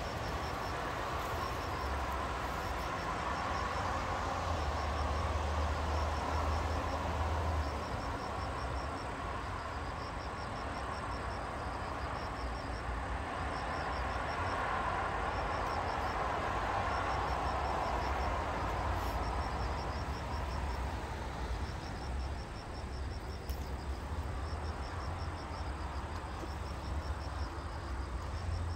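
Crickets chirping in short, evenly pulsed trills about once a second, over a steady low rumble of distant traffic that swells and fades twice.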